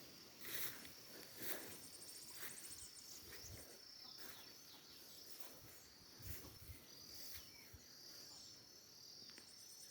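Faint rural nature ambience: a steady high insect drone with stretches of fast pulsing trills, and a few short bird chirps scattered through.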